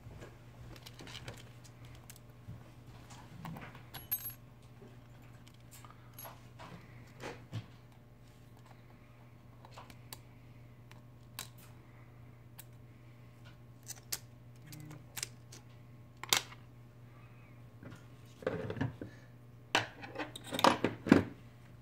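Scattered small clicks and taps of hand tools and smartphone parts being handled on a repair bench, with a busier run of clicks near the end, over a steady low hum.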